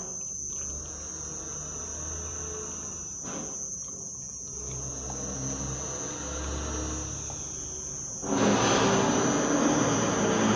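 Crickets chirping steadily. About eight seconds in, a louder noise starts and lasts some two seconds.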